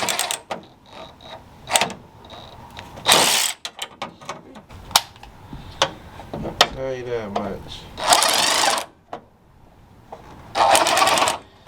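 Ratchet wrench worked in four short strokes of rapid clicking, with single metal knocks between, during hand-tool work on a hood latch.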